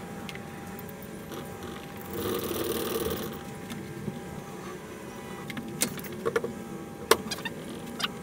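Crankshaft being fitted into a Ford Crossflow engine block on an engine stand: a noisy rustle of parts being handled for about a second, then a few sharp metallic clicks and knocks as the parts are set in place, over a faint steady hum.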